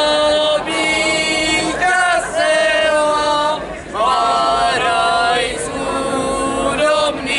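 A group of young men and women in folk costume singing a Slovak folk song together without accompaniment, in phrases of long held notes.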